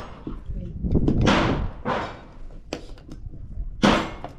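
Gunshots from neighbouring bays at an outdoor range: three sharp reports, about a second in, past the middle and near the end, each trailing off in an echoing decay.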